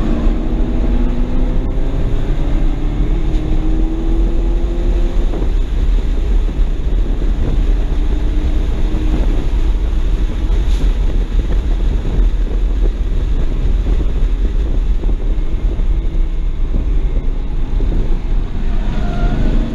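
In-cabin sound of a stock 2007 BMW 335i's twin-turbo inline-six under acceleration, its note rising for about five seconds. The engine note then fades under a heavy low rumble of wind and road noise, and rises again near the end.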